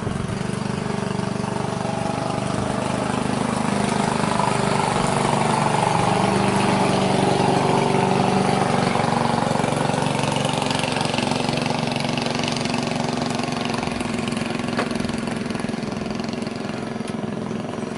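Small boat engine running steadily, growing louder to a peak about eight seconds in and then slowly fading, like a boat passing by.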